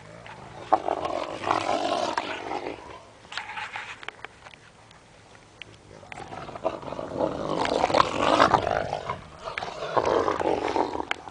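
Wolves growling during rough play-fighting, in two long rough bouts: one starting about a second in and lasting about two seconds, the other starting around six and a half seconds in and running on for several seconds.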